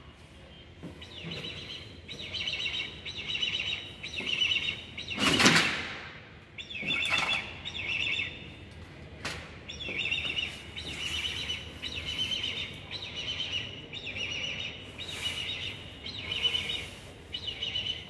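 Bird calling: a high chittering call repeated about once a second, each call made of rapid stuttering notes. About five seconds in, a loud brief rushing sound stands out above the calls.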